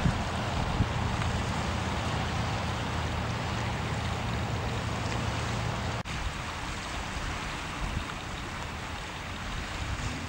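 Outdoor riverside ambience: wind rushing on the microphone, with a steady low hum during the first half that ends at an abrupt cut about six seconds in.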